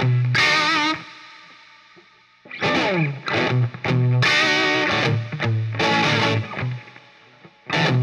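2017 Gibson Firebird T electric guitar played through an overdriven amp and 2x12 cabinet: distorted chords and riffs. A chord is left to ring out and fade about a second in, a falling slide comes about three seconds in, and another chord rings out and fades near the end.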